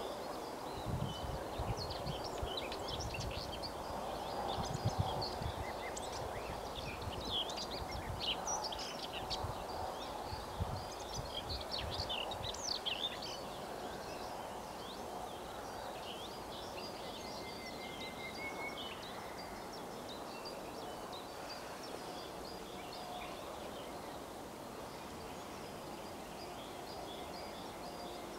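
Several birds singing and chirping, busiest in the first half and thinning out later, over a steady outdoor background noise. Low rumbling thumps come and go in the first half.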